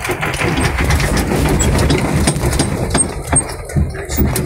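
Land Rover Defender's diesel engine running at low revs, heard from inside the cabin, as the vehicle crawls downhill in gear, with scattered knocks and rattles from the body over rough ground.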